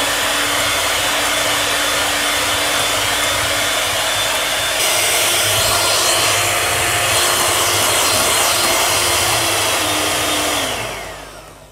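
Electric hand mixer running steadily at speed, its twin beaters whipping Chantilly cream powder and lemon juice into a stiff mousse in a glass bowl; near the end the motor winds down and stops.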